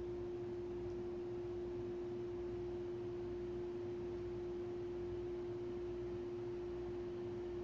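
A steady, unbroken pure tone held at one pitch, with a faint low hum beneath it.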